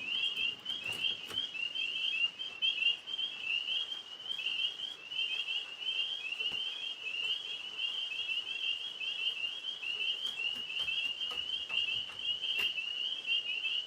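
Tree frogs chorusing: a dense run of short, high notes that overlap and repeat without a break.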